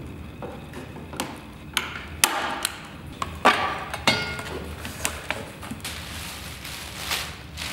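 Irregular knocks, clicks and clatters of hand tools and plastic parts being handled on a workbench, with a few louder thumps about two to four seconds in.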